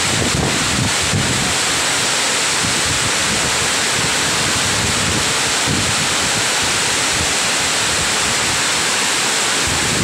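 Heavy rain pouring down in a steady, loud rush, with strong wind buffeting the microphone in low rumbles.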